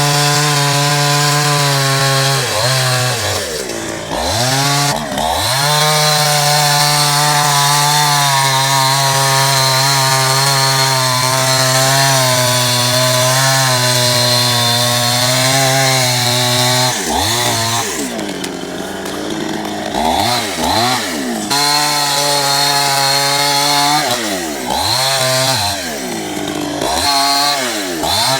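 Two-stroke chainsaw running at full throttle through a long cut, engine pitch dropping and climbing back twice a few seconds in. From about two-thirds of the way through it is revved down and up again several times in quick succession.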